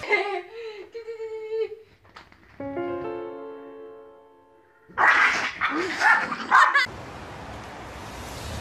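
Small terrier dogs whining, then a short chime of several ringing notes, then a burst of loud, excited barking and yipping that cuts off abruptly, followed by steady hiss.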